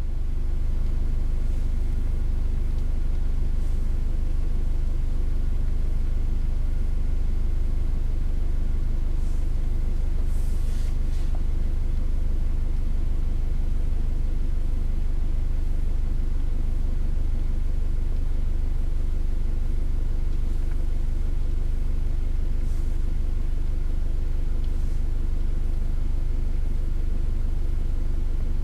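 Car engine idling: a steady low rumble with an even hum.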